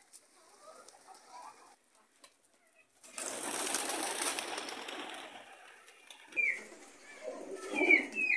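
Domestic pigeons: a sudden burst of wing flapping about three seconds in that fades over a couple of seconds, then pigeons cooing, with a few short high calls, near the end.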